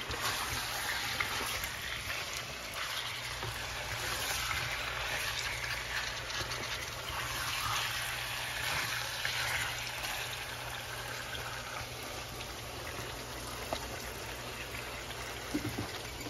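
Chicken pieces frying in oil in a pan: a steady sizzle, with a low steady hum underneath.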